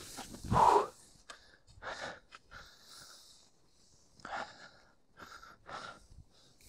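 Skis cutting through deep powder snow: a string of short, irregular whooshes, the loudest about half a second in.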